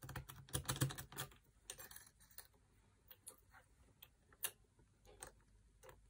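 Small metallic clicks and rattles of lock picks and a tension wrench against a night latch's pin-tumbler cylinder. There is a quick flurry of clicks at the start, another about two seconds in, then a few scattered ticks.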